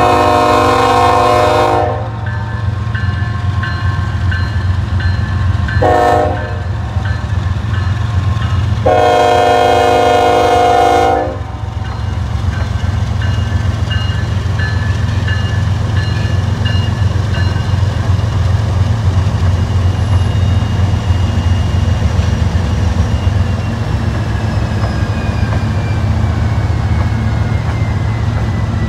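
Freight diesel locomotives passing close by, their multi-chime air horn sounding a long blast, a short one about six seconds in, and another long blast of about two seconds. The steady low rumble of the diesel engines runs underneath. A bell rings repeatedly and faintly through the first half.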